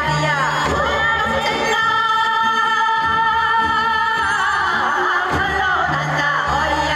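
Women singing Korean traditional (gugak) vocal music, with wavering, ornamented pitch and instrumental accompaniment underneath. They hold one long steady note from about two seconds in to about four seconds in, then the voice bends again.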